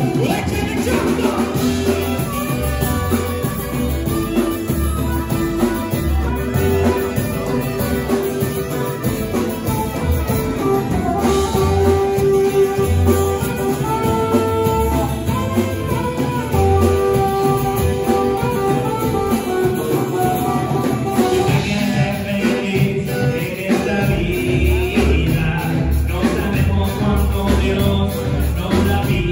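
A small live band playing: acoustic guitar and drums with a steady beat, saxophone holding long notes, and a singing voice.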